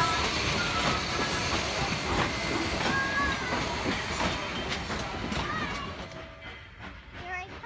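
Denver & Rio Grande Western steam locomotive 491, a K-37 class 2-8-2, and its train of passenger cars rolling past at slow speed: steam hissing and wheels clicking over the rail joints. The sound fades away about six seconds in.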